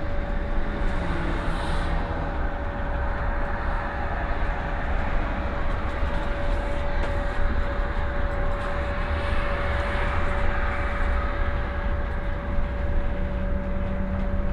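Van Hool ExquiCity bi-articulated electric bus, batteries charged by a CNG engine, driving along a city road, heard from the driver's cab: low rumble and road noise with a steady whine. A second, lower hum comes in near the end.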